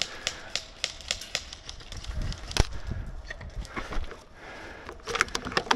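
Scattered, irregular clicks and knocks, with one sharper knock about halfway through and a quick cluster of clicks near the end.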